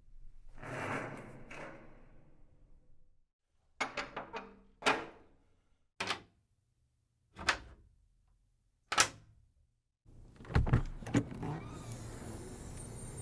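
Heavy iron door sound effects: a scraping, grinding swing in the first couple of seconds, then a string of separate metal clanks and slams with silence between them. A close cluster of bangs comes near the end, and then a steady noisy hum.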